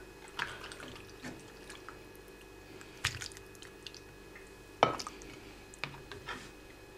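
A spatula scraping and clicking against a ceramic baking dish while cheesy pasta bake is served out, with soft wet squishing of the food and two sharper clinks, about three and five seconds in.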